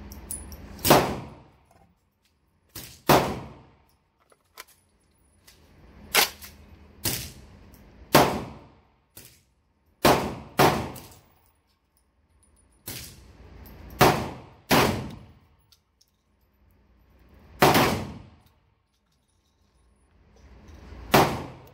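A string of about a dozen 12-gauge slug shots from semi-automatic bullpup shotguns, each a sharp bang with a short echoing tail, fired singly and in quick pairs as the actions cycle.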